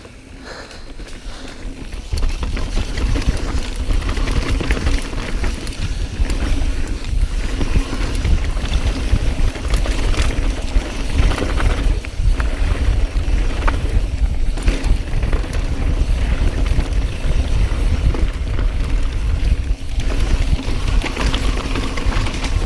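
Wind rushing over the camera microphone and knobby tyres rumbling down a rough dirt downhill trail, with the mountain bike rattling and clicking over bumps. It gets much louder about two seconds in.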